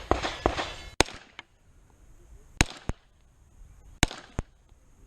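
Three slow, aimed shots from a 9mm Beretta 92 Elite LTT pistol, about a second and a half apart, each followed by a fainter crack about a third of a second later. A cluster of sharp cracks comes right at the start.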